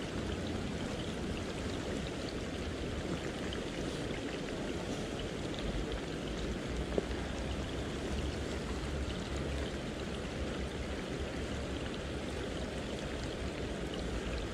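Steady rushing noise of river water with a low rumble, and a single small click about seven seconds in.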